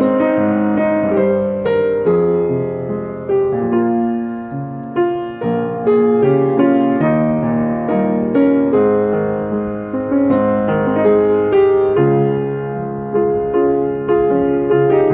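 Background piano music: a gentle, steady stream of notes and chords.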